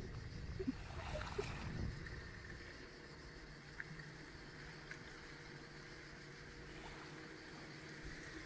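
Faint shoreline ambience of a calm sea, with gentle water lapping at the beach. There is a low rumble in the first two seconds, a few faint ticks, and a faint steady low hum from about halfway through.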